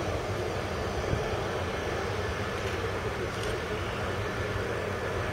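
Boeing 747-400 jet airliner's four engines running at approach power as it flares over the runway, a steady rumble.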